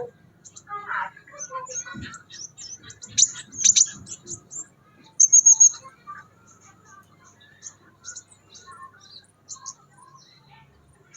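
Crimson sunbird calling: a string of short, high chirps and twitters, loudest about three to four seconds in, with a brief rapid high trill about five seconds in.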